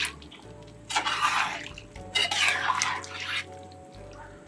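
A spoon stirring a large pot of chunky beef curry that has just had water added, making wet sloshing sounds in two bursts, about a second in and again from about two seconds.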